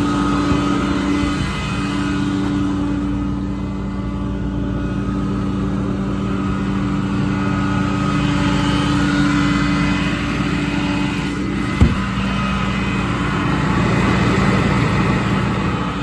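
Ram 5500's 6.7 Cummins diesel engine idling steadily with a constant hum. There is a single sharp click about twelve seconds in.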